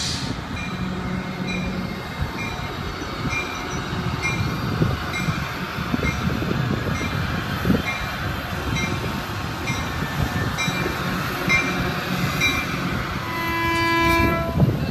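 Caltrain diesel locomotive and gallery cars approaching with a steady rumble while a bell rings about once a second. Near the end the locomotive sounds one short horn blast.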